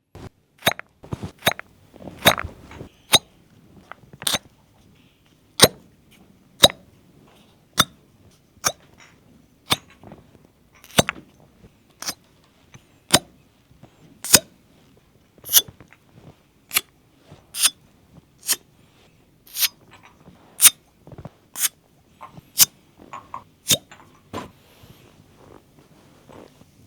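A series of sharp, crisp clicks or pops on the body during cupping and massage work, about one a second, some much louder than others.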